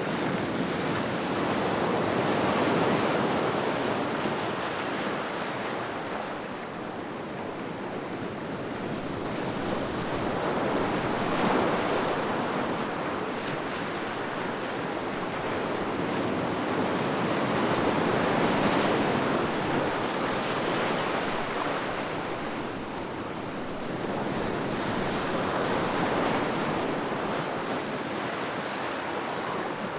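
Sea waves breaking on a shore, the wash rising and falling in slow surges every several seconds.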